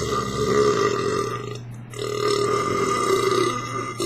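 Long, drawn-out belches from a man who has just chugged Diet Coke, the gas brought up by the carbonated soda. One belch runs to just under two seconds, and after a brief break a second long belch starts about 2 s in and lasts most of the rest.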